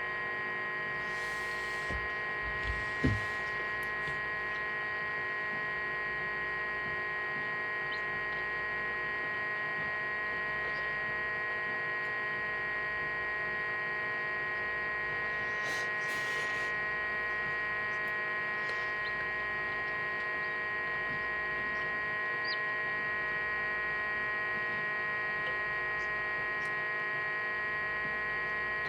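Incubator running with a steady electrical hum made of several fixed tones. There is a short low thump about three seconds in and a brief soft rustle near the middle.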